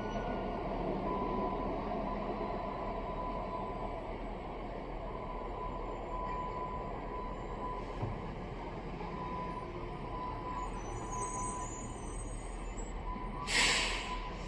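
Building fire alarm sounding: a steady, dense drone with a thin tone that drops out and returns several times. A short burst of hiss comes near the end.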